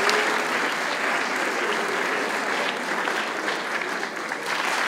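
Audience applauding, easing slightly about four seconds in and then swelling again.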